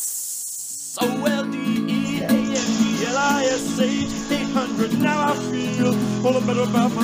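Background music: a song with acoustic guitar and a singing voice, coming in about a second in after a short hiss.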